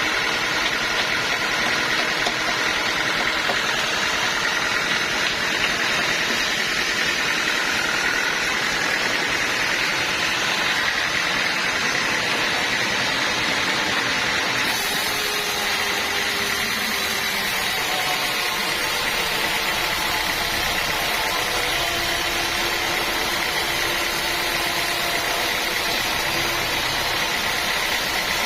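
Sawmill saw running steadily, with a mechanical whine; the hiss grows brighter about halfway through.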